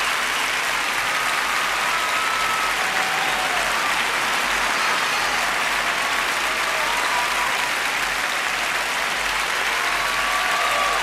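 A large auditorium audience applauding, a dense, steady roar of clapping with a few faint calls on top.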